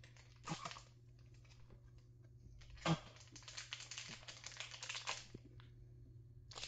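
Cardboard box and packaging of a disposable vape being opened and handled. Soft scuffs and small taps, a knock about three seconds in, then a couple of seconds of crackly rustling.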